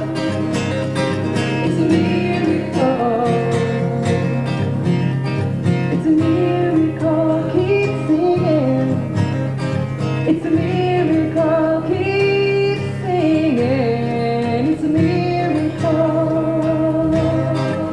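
Live acoustic folk music: a steadily strummed acoustic guitar, with a melody line that slides between notes above it and no sung words.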